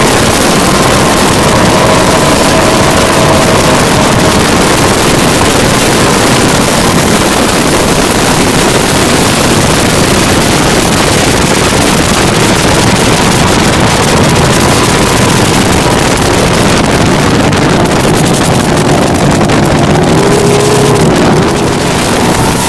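Speedboats running at speed on open water: loud, steady engine noise mixed with a rush of wind across the microphone, with a faint steady whine.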